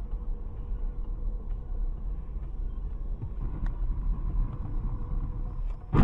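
Steady low rumble of a car driving, as recorded by a dashcam inside the cabin, ending with a sudden loud bang as another car strikes it.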